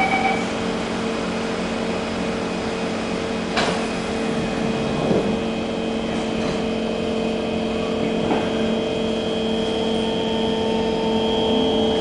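Steady electrical and air-conditioning hum inside an SMRT C151 metro car standing at a platform, with one sharp knock about three and a half seconds in. Near the end a rising whine sets in as the traction motors start the train moving.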